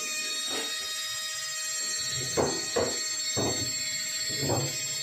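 Jeweller's rotary micromotor handpiece running with a steady high whine, its bit cutting into a gold ring, with about five brief scraping touches as the bit meets the metal.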